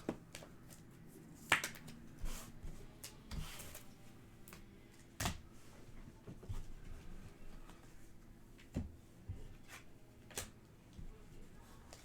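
Trading cards being handled: soft sliding and rustling of cards with scattered sharp taps and clicks, the loudest about a second and a half in.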